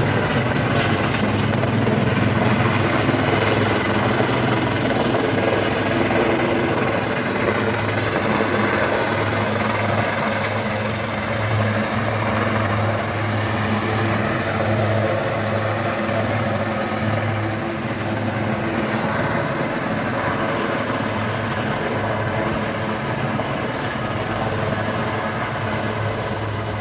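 Helicopter's rotor blades and turbine engines running steadily as it comes down and sits on a grass football pitch, heard from a distance.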